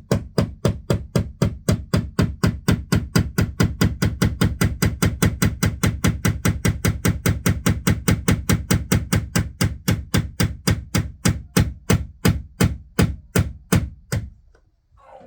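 Hammer driving a nail into a wall with rapid, even strikes, four or five a second, that stop about fourteen seconds in.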